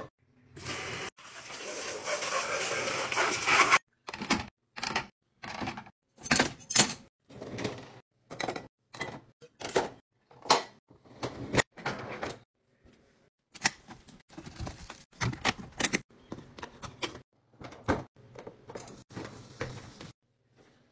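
A kitchen faucet runs for about three seconds, then a long, uneven series of short clinks and knocks as ceramic bowls and glasses are set into a dishwasher rack.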